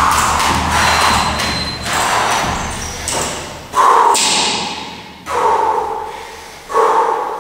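A thin speed rope slapping the floor as a man skips on it, with his feet thudding, at the end of a sprint interval. The rhythm stops early on, and he then breathes hard, with loud panting breaths about every second and a half.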